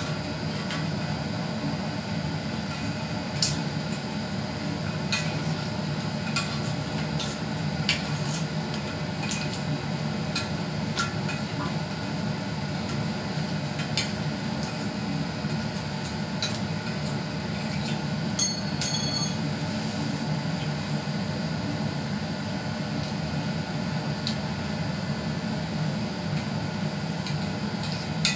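Cured PVA bonding layer being peeled and picked off the glass face of a CRT picture tube, giving scattered sharp clicks and crackles over a steady low whir that runs throughout.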